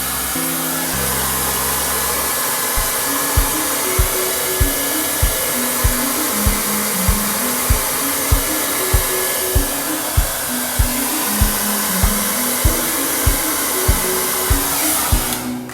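Hair dryer blowing steadily, switched off abruptly near the end, over background music with a steady beat.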